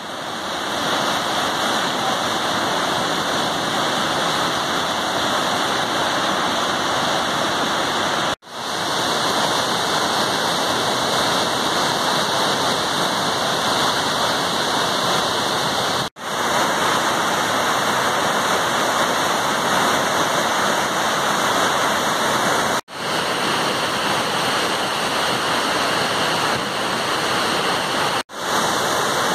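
Heavy flood release pouring over a dam spillway and crashing down a rocky channel: a steady, loud rush of turbulent whitewater. The sound cuts out for an instant four times, where the shots are cut.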